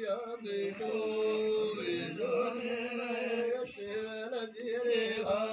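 Male voices chanting a devotional prayer in long, drawn-out held notes.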